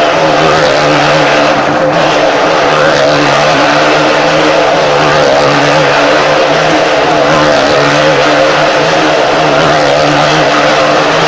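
Motorcycle engine running steadily at high revs as the bike circles the vertical wooden wall of a wall-of-death drum, its note wavering slightly throughout.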